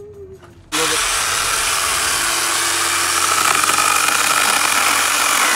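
Hyper Tough 20V lithium cordless electric chainsaw starting abruptly under a second in and running steadily with a motor whine as its 10-inch bar cuts into a branch.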